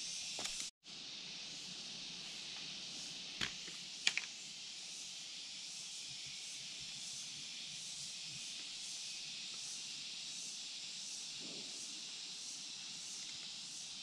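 Steady high-pitched outdoor hiss with a faint regular pulse. A brief drop-out to silence comes just under a second in, and two short clicks come around three and four seconds.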